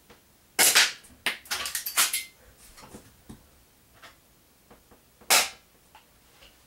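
Two shots from an airsoft Colt M1911 pistol, each a short sharp pop, the first just under a second in and the second about five seconds in. A quick run of clicks and knocks follows the first shot.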